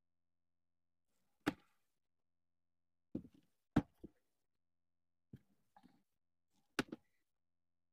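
Hand-stitching a sneaker's sole with a wooden-handled sole needle and thread: a handful of short, sharp clicks and taps at irregular intervals, with silence between, as the needle is worked through the sole and the thread pulled tight.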